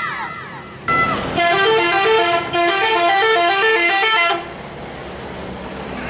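Bus 'telolet' horn: a multi-tone musical horn gives a short toot about a second in, then plays a quick tune of stepping, alternating notes for about three seconds in two phrases. When it stops, steady road traffic noise is left.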